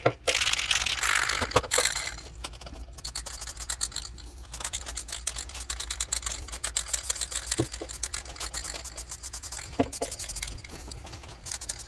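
Aerosol can of Mohawk brown toner hissing as it sprays over bare wood for about the first two seconds, then a long run of quick, irregular clicks and rattles from the can being handled.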